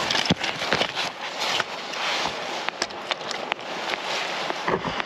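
Shoes scuffing and crunching on sandstone and dry leaf litter close to the microphone: a steady crackly rustle with many small sharp clicks.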